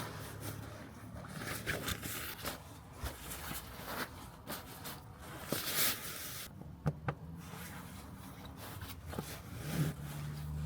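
Irregular rustling, scraping and small clicks of things being handled inside a car, with a louder rustle about halfway through, over a low steady hum.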